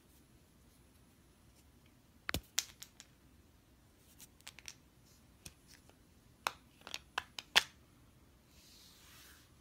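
Shards of a broken dried-clay bowl clicking and tapping as they are picked up and handled, with a sharper knock about two seconds in and a quick run of clicks between six and seven and a half seconds. A soft brief hiss near the end.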